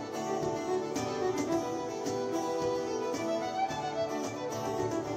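Fiddle tune played live on violin, with a steady beat struck on a cajón and acoustic guitar backing.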